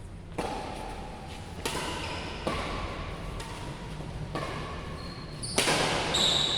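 Badminton rackets striking a shuttlecock in a rally, sharp hits about once a second, each ringing briefly in a large hall.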